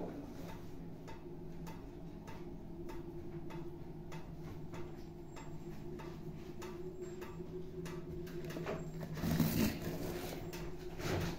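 Regular ticking, about two ticks a second, over a steady low hum. Near the end there are a couple of louder rustling bursts of handling noise.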